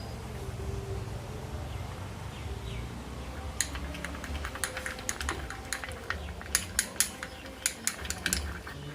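A metal spoon clinking and tapping against a bowl while slime is mixed: a run of sharp, uneven clicks that starts a few seconds in and comes thickest near the end.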